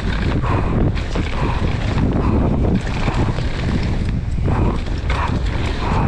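Wind rushing over the microphone of a downhill mountain bike riding down a trail, with the bike rattling and knocking over bumps.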